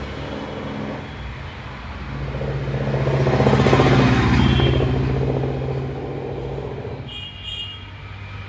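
A motor vehicle's engine running, its steady low hum swelling louder around the middle and easing off again.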